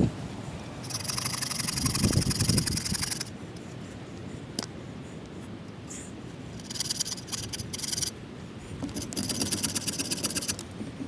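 EKA 21-inch combi bow saw cutting through a fallen ash log with rapid push-pull strokes, in three bursts: about a second in, about seven seconds in and near the end, with short pauses between.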